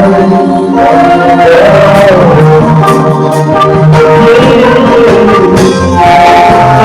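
Music with singing: long held notes under a voice that glides between pitches.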